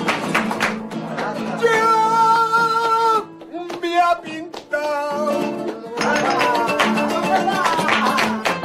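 Live flamenco: two Spanish guitars strumming, hands clapping palmas, and a man singing cante, with one long held sung note about two seconds in.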